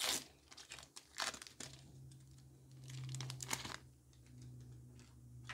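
Foil wrapper of a Pokémon trading card booster pack being torn open and crinkled by hand. There are a few sharp crinkles, the loudest right at the start and another about a second in.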